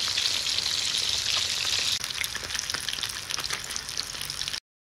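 Whole lizardfish frying in a pan of hot oil, sizzling with dense crackling. The sizzle cuts off suddenly near the end.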